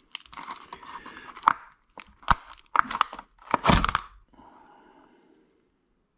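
A thin plastic protective sleeve being pulled out from between an electric motor's rotor and stator: crackling and scraping with a string of sharp clicks for about four seconds, then a faint rustle that dies away.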